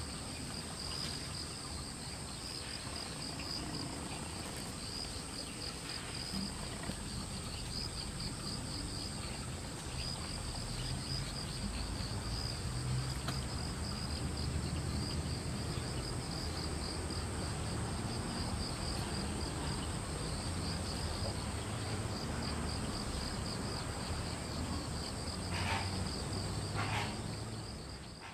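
Insects chirring steadily: a fast pulsing trill and a continuous high, thin whine, over a low background rumble. Two short calls break in near the end.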